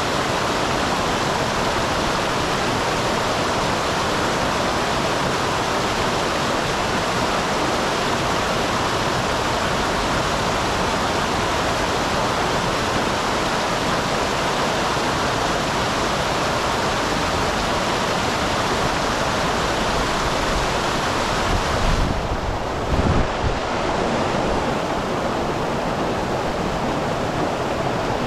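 Small waterfall on a mountain stream, water splashing and rushing steadily. About three-quarters of the way in there is a brief low rumble with a couple of soft bumps, then the steady rush carries on.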